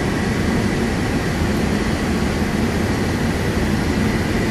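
Steady cockpit noise of a Boeing 747 classic on final approach: an even rush of airflow and engine sound, with a faint steady high tone.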